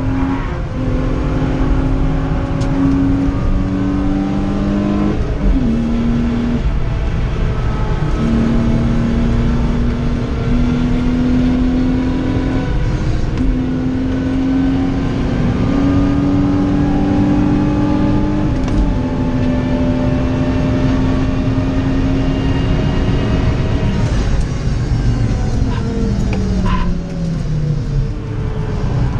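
BMW 323ti's 2.5-litre straight-six engine heard from inside the cabin, pulling hard under full throttle with several gear changes where the pitch steps sharply. It holds a long steady note, then falls in pitch over the last few seconds as the car slows for a corner.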